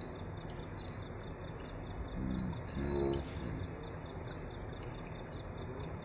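Thin streams of water from straws set in a plastic bottle fountain splashing steadily into a basin of water, with a high, regularly pulsing chirp in the background. Two brief low tones sound about two and three seconds in.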